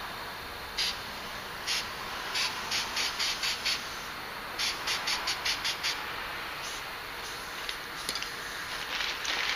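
Spray-paint can fired in short hissing bursts, several quick runs of about four or five taps a second on the nozzle, over a faint steady hiss.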